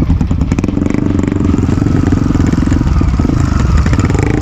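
Off-road trail motorcycle engine running steadily, with a short burst of rattling about half a second in.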